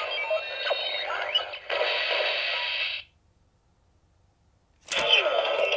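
Bandai CSM Decadriver toy belt playing its Kabuto Hyper Form electronic sound effect, a dense whooshing sound with sweeping tones that cuts off about three seconds in. After a short silence there is a sharp click about five seconds in, as the Clock Up Rider Card goes into the buckle, and the belt's electronic sound starts again.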